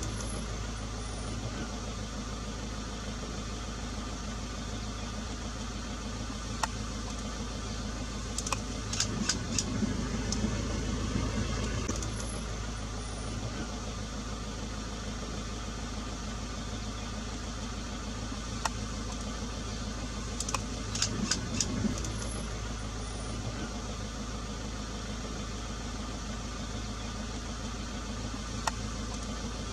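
Safari vehicle's engine idling steadily, a low, even hum, with a few sharp clicks and taps, twice in quick clusters.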